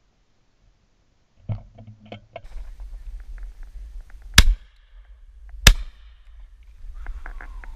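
Shotgun fired twice, two sharp cracks just over a second apart, with a few lighter knocks before them.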